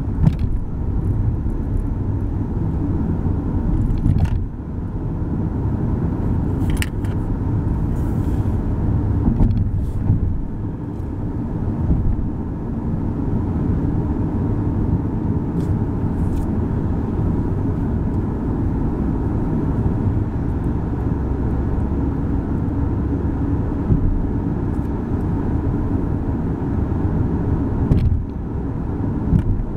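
Car interior road noise while driving: a steady low rumble of tyres and engine, with a few brief faint clicks.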